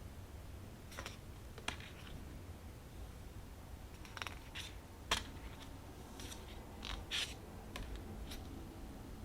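Tarot cards being handled: scattered light clicks and short papery scrapes as cards are slid and set down, about ten in all.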